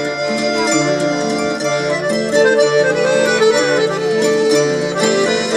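Piano accordion playing a tune: sustained reedy chords and melody over a bass that alternates between notes about twice a second.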